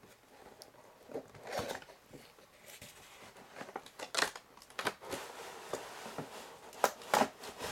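Handling noise from a cardboard display box with a clear plastic window being moved and tilted: irregular crinkles and sharp clicks, the loudest about a second and a half, four and seven seconds in.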